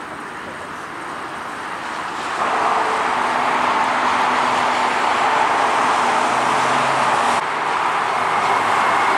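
Jet airliner engines running with a steady rushing noise and faint steady hums. The sound steps up sharply in loudness about two and a half seconds in and shifts abruptly again a little past seven seconds.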